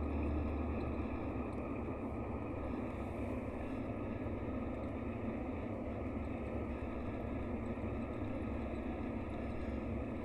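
Mercedes-Benz O-500RSD coach's diesel engine running steadily, with a continuous low hum that eases slightly about a second in.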